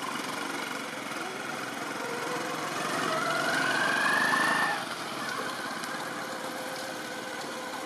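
A small engine running steadily. Its pitch climbs for about two seconds in the middle and it grows louder, then it drops away suddenly.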